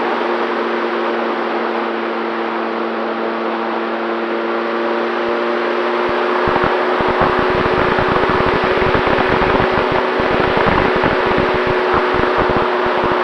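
FX-79 flying wing's electric motor and propeller running steadily in flight: a constant hum over a strong rush of air. From about six seconds in, wind buffets the microphone with rapid low rumbles.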